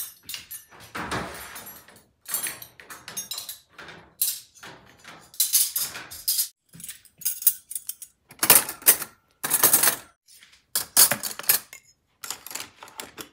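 Stainless-steel cutlery clinking and jangling as handfuls of spoons, forks and knives are taken from a dishwasher cutlery basket and put into a plastic drawer organizer: a string of quick metallic rattles with short pauses between handfuls.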